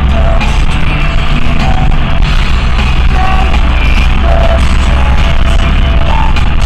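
Loud rock-style music.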